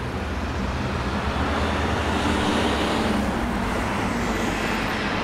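City street traffic: a steady wash of road noise and engine rumble, with one vehicle's engine swelling as it passes about two to three seconds in.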